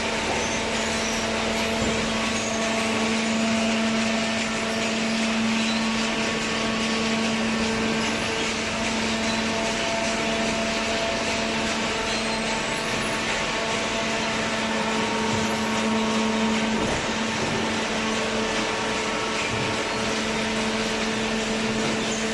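Hydraulic cardboard baler running: a steady machine hum with one constant tone and a few fainter higher ones over an even rushing noise.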